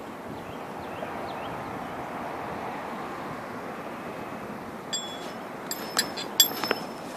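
Steady outdoor rooftop noise, an even hiss, then a run of sharp metallic clinks and clicks with a brief ringing, starting about five seconds in.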